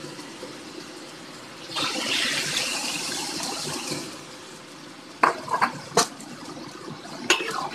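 Bitter melon and tomatoes sizzling in a hot wok. Beaten egg is poured in and the sizzle grows louder for about two seconds. Several sharp clinks against the pan follow near the end.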